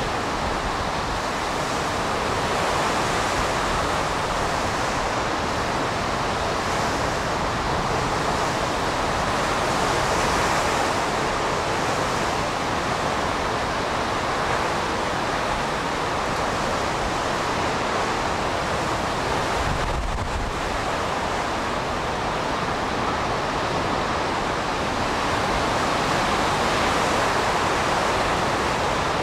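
Hurricane-force wind with driving rain, a loud steady rush of noise on the microphone that swells slightly in gusts.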